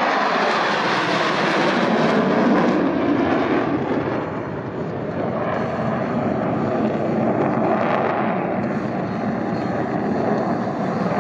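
Jet engine noise from F-16 fighter jets flying past, loud and steady, easing slightly about four seconds in and then building again.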